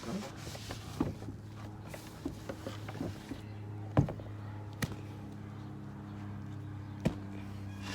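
Handling and scrubbing noises from cleaning a sneaker with a sponge: a rushing scrub in the first second or so, then scattered clicks and knocks, the loudest about four seconds in, over a steady low hum.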